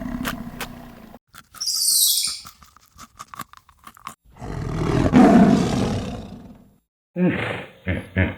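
A large animal roaring: a long call fading out over the first second, another long roar a few seconds in, and a run of short separate calls near the end, with a brief hiss and some clicks between the roars.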